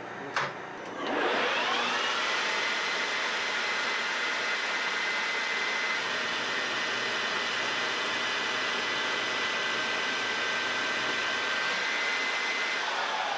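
Metal lathe spinning up about a second in with a rising whine, then running at a steady 800 rpm while a carbide insert takes a 2.54 mm deep turning cut along a steel bar: a steady whine over hissing cutting noise. The whine starts to fall near the end, and a short click comes just before the spin-up.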